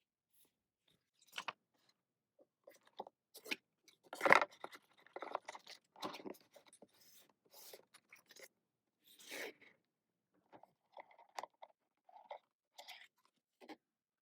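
Irregular crinkling, scraping and tapping as a K-pop album's paper inserts and packaging are handled, loudest about four seconds in.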